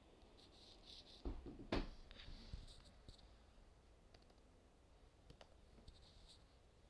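Two sharp clicks about half a second apart, a little over a second in, followed by a few fainter ticks, over near-silent room tone: clicks of someone working at a computer.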